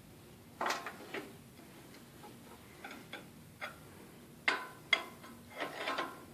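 Scattered light metal clinks and knocks at irregular intervals, a few with a short ring, from working a pickup cab into line on its body mounts.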